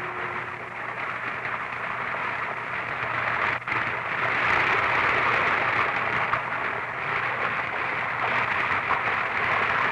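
Seawater spraying under pressure from a drill hole that has broken through to the sea: a steady hiss that grows louder about four seconds in.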